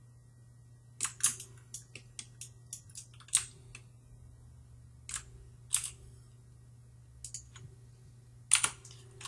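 Sharp clicks of a computer mouse and keyboard as a 3D model is worked on, a quick cluster of them early in the first few seconds, then single clicks and pairs spaced out, over a faint steady low hum.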